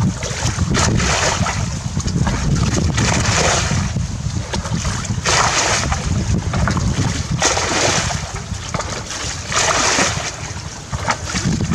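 Muddy water bailed out of a shallow ditch with a plastic bucket: a splash and pour about every two seconds as the bucket is scooped and tipped, over a steady rumble of wind on the microphone.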